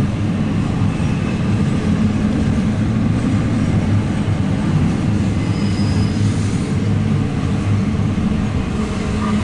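Double-stack intermodal container cars of a CSX freight train rolling past, a steady rumble of steel wheels on rail that neither builds nor fades.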